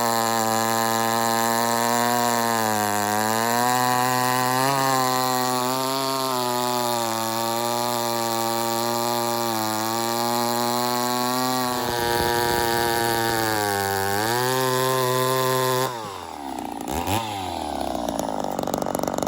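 Ported Poulan 245A two-stroke chainsaw running at full throttle in a cut through big hardwood, its pitch dipping and recovering several times as the 28-inch bar loads up. A dull chain is slowing the cut. About 16 seconds in, the engine comes off full revs and runs lower and unevenly, and the sound stops near the end.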